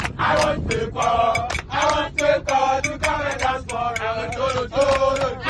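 A group of young people chanting and singing together in a bus, with sharp beats keeping a steady rhythm.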